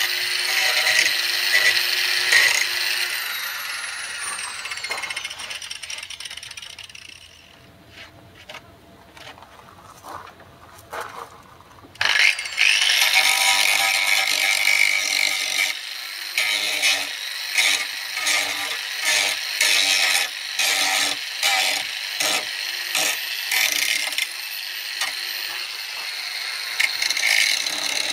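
Handheld electric grinder working rusty metal: it grinds, then the motor winds down with a falling whine a few seconds in. After a quieter spell with a few small knocks, it starts again suddenly and grinds in repeated strokes, about one a second.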